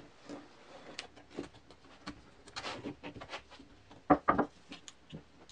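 Rubber inner tube being stretched and worked onto a plywood drum by hand: soft rubbing and handling sounds with small clicks, and two sharper clicks a little after four seconds.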